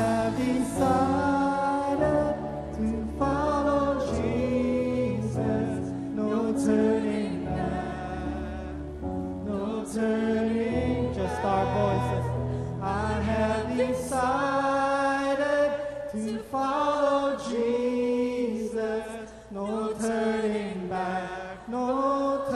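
A church worship band and group of singers performing a slow worship song, with voices held and sliding over sustained keyboard and bass. About two-thirds of the way through the bass drops out, leaving mostly voices over light accompaniment.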